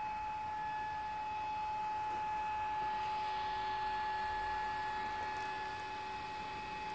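Steady high-pitched electrical whine: one held tone with fainter steady tones above and below it, over a light even hiss.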